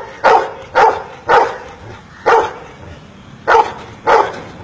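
A golden retriever barking single barks one after another, about six, spaced unevenly: it is counting out its answer to the sum "7 plus 1" on command.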